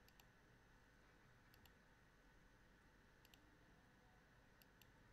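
Faint computer mouse clicks, coming in quick pairs four times, over a low steady hiss.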